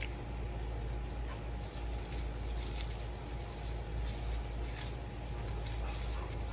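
Outdoor background: a steady low rumble with scattered faint, light clicks and rustles.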